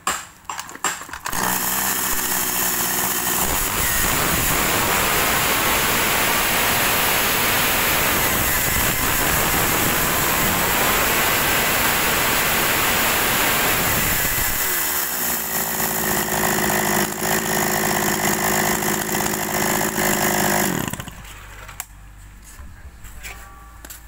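Shindaiwa SSE360 36cc two-stroke chainsaw starting about a second in and idling briefly. It then revs high and holds there for about ten seconds, drops back to idle, and is switched off a few seconds before the end.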